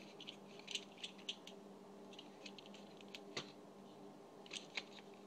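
Small plastic parts of a cheap transforming robot toy clicking and tapping as they are handled and fitted together: scattered light clicks in small clusters, over a faint steady hum.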